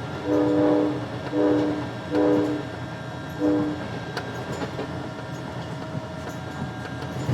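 Amtrak locomotive air horn sounding four blasts of one chord in the first four seconds, the first the longest, then stopping. Under and after the horn, the passing train's steady rumble with scattered clicks from the rails.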